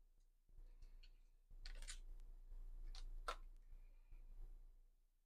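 Near silence: a faint low hum with a few soft, brief rustles or clicks, about two seconds in and again about a second later.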